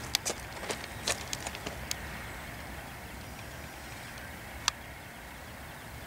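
Freight train cars rolling past with a steady rumble of steel wheels on rail. A quick series of sharp clicks comes in the first two seconds, and one more a little before five seconds in.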